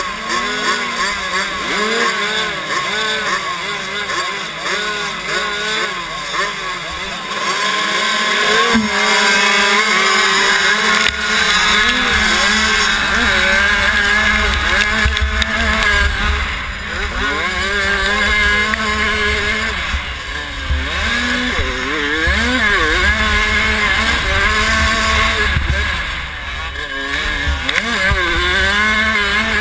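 Small two-stroke 65cc motocross bike engines revving at the start line, then the rider's own bike launching about eight seconds in and racing at high revs, its pitch rising and falling through gear changes and over the bumps. Wind buffets the helmet-mounted microphone once the bike is under way.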